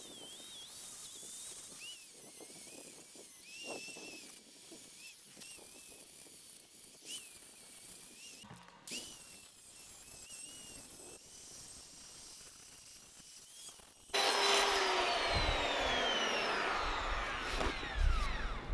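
Angle grinder working over the cast-iron frame of an arbor press, its high whine wavering as the disc bears on the metal. About 14 seconds in the sound turns suddenly much louder and harsher, and its pitch falls away over the following seconds.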